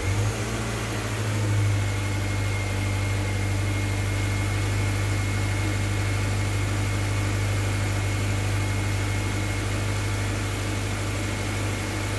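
Subaru EJ25 2.5-litre flat-four engine idling steadily, just after being started to warm up and bleed a freshly refilled cooling system. A thin, steady high whine runs above the engine.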